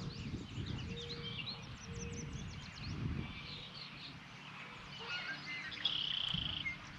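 Several songbirds chirping and trilling, with a higher steady trill near the end, over a low irregular rumble.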